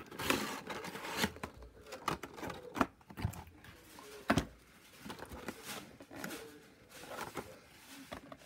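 Hard plastic shell of an Aikatsu Phone Look toy phone being handled and pried at its edge: irregular scraping and rubbing with several sharp clicks and knocks, the loudest a little after four seconds in.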